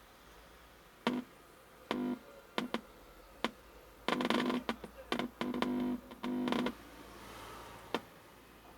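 TV speakers giving short bursts of buzzing hum as the inputs of the audio amplifier IC are touched by hand, about nine bursts of uneven length. The hum shows the amplifier IC is working, so the no-sound fault lies before it.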